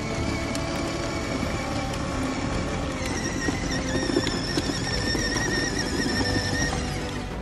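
Battery-powered ride-on toy car's electric motors and gearboxes whining steadily as it drives over paving, with the wheels rumbling underneath; the whine shifts lower in pitch about three seconds in.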